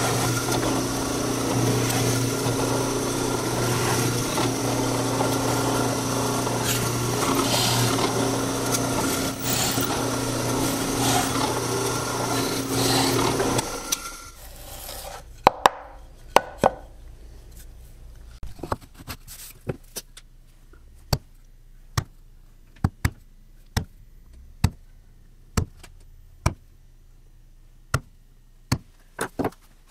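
Drill press running steadily while boring holes through a wooden block, cutting off about halfway. Then a string of sharp ticks, roughly one a second, as an awl is pressed through a paper template to mark hole centres on plywood.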